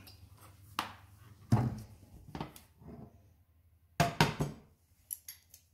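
Several hard knocks and clunks of kitchenware: an oil bottle and a nonstick frying pan being handled on a glass cooktop. The loudest is a quick cluster of clatter about four seconds in, as the pan is lifted and tilted on the hob.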